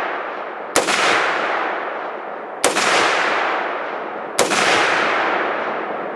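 Shots from a 5.56 rifle with an 11.5-inch barrel and an A2 flash suppressor, fired slowly at just under two seconds apart: three shots, then a fourth right at the end. Each crack is followed by a long echo that dies away before the next.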